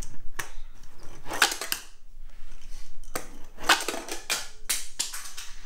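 A run of sharp plastic clicks and knocks, loudest about one and a half seconds in and again nearer four seconds: a tiny Monster Jam Mini truck being set on the Freestyle Flip Arena playset's launcher, fired off, and clattering as it lands.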